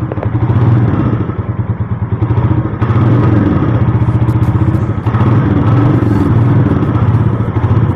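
Royal Enfield Classic 350's single-cylinder engine running with a steady thumping beat, louder from about three seconds in.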